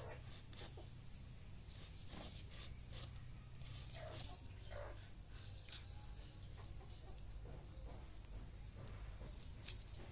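Knife scraping the scales off a large rohu fish: quick, irregular, crisp scraping strokes.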